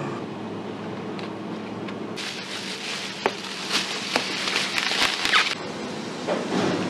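Thin plastic bag crinkling and rustling as it is handled, starting about two seconds in and stopping about five and a half seconds in, with a few sharp crackles. A steady low hum lies underneath.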